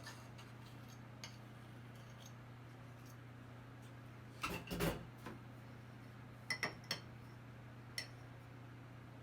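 A utensil clinking and scraping against a bowl as cheddar biscuit batter is mixed: a short cluster of knocks about halfway, then a few single clinks later.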